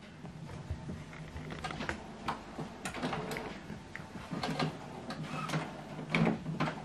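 Epson WorkForce Pro WF-3820 inkjet printer's internal mechanism running with a low hum and irregular clicks and ticks. The printer is processing after an ink cartridge replacement.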